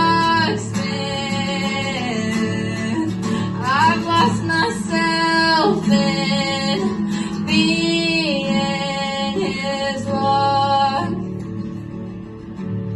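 A female voice singing long wordless held notes and runs over acoustic guitar. The voice stops about eleven seconds in, leaving the guitar playing more quietly.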